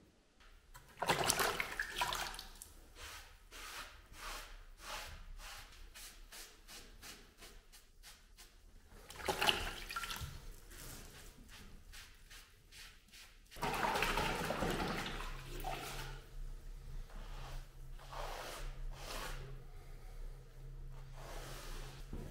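A wet sponge rubbing and wiping over brickwork and a concrete foundation stone to clean off mortar, in many short strokes, with water splashing and trickling. A longer, louder wash of water comes about two-thirds of the way in.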